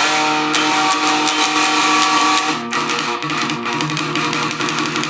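Metal music: electric guitar playing held chords that change about every couple of seconds.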